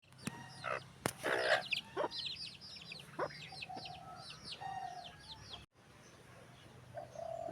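Chickens calling, with a quick run of high falling chirps for the first few seconds and a few longer, held calls later.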